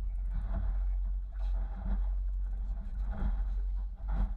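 Boat's outboard motor running steadily at slow trolling speed, a continuous low hum heard from aboard the aluminium boat.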